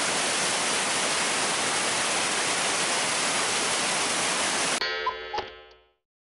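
Loud, steady rush of a river swollen muddy by heavy rain, pouring over a concrete weir in flood. It cuts off suddenly near the end and gives way to a short tonal jingle that fades out.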